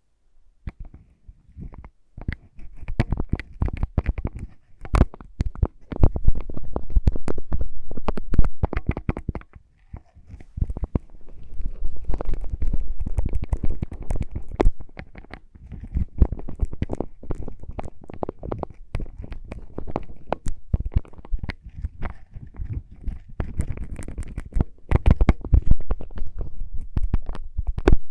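Close-miked ASMR lip balm sounds: rapid, irregular clicks, taps and crackles over deep thudding, in busy stretches with brief pauses.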